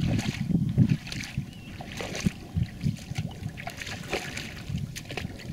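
Legs wading through shallow floodwater, a splash and slosh with each stride, louder in the first second. Wind buffets the microphone underneath.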